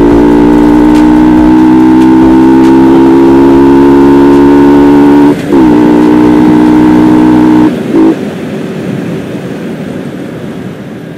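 Yamaha R15 V2's single-cylinder engine running under steady throttle while riding, heard loud from on the bike. About five seconds in the note breaks briefly and settles slightly lower. Near eight seconds the engine note drops away, leaving quieter wind and road noise as the bike slows for a stop.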